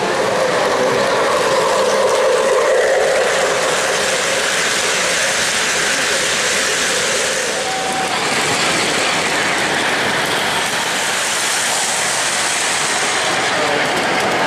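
O-gauge three-rail model trains running on the layout: a steady rolling rumble of wheels on metal track, with clicking at the rail joints.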